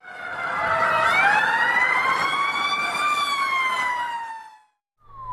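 Fire-engine siren wailing, rising and then falling over about four seconds over a noisy rush, and cut off abruptly. A second falling siren tone begins near the end.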